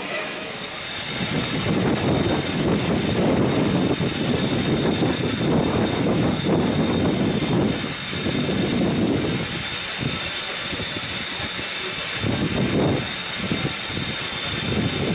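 Beyer Peacock steam locomotive standing with steam rushing and hissing steadily from it, swelling about a second in and then holding level.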